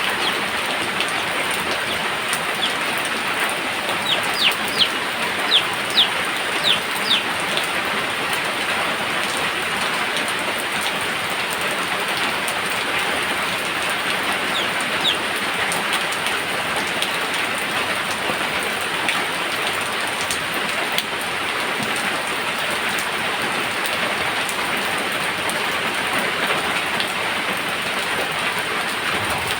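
Steady heavy rain falling, with a short run of sharp, louder taps between about four and seven seconds in.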